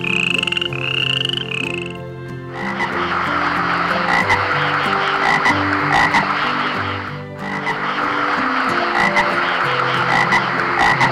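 Frogs calling: a few short rising chirps, then a dense chorus of rapid pulsing croaks that starts about two and a half seconds in, drops out briefly around seven seconds, and resumes.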